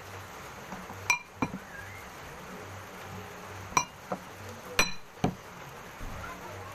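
Drinking glass clinking against the table and dishes as it is put down: six sharp clinks in three close pairs, each with a brief glassy ring, the loudest about a second in and near five seconds.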